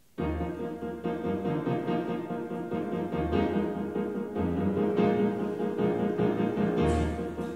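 Piano playing the introduction to a song, with sustained chords over low bass notes, starting suddenly just after the beginning.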